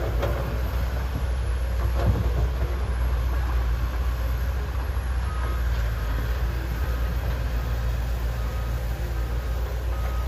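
Diesel engines of hydraulic crawler excavators running steadily under digging load, a constant low rumble, with a few knocks of the bucket against soil and stones, one about two seconds in.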